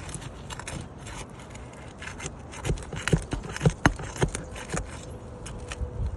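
Metal pry tool scraping and clicking under asphalt roof shingles while working nails loose, with a run of sharp metallic clicks in the middle.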